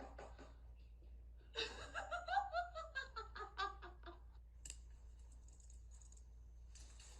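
A person laughing: a burst of quick pulses that fall in pitch, starting about a second and a half in and lasting about two and a half seconds.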